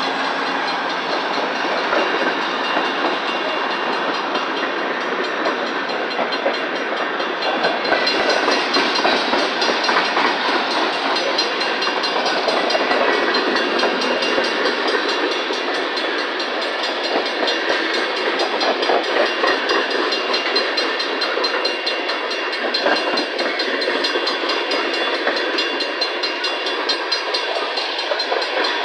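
Empty coal train's hopper cars rolling past steadily, with wheels clacking over the rail joints.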